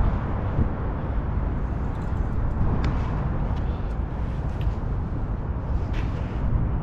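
Steady low outdoor rumble with no clear tone, marked by a few faint short clicks.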